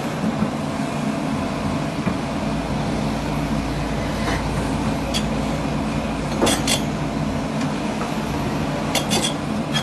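Hidromek HMK500LC mining excavator's diesel engine running steadily, with a few sharp metallic clinks over it, two pairs of them in the second half.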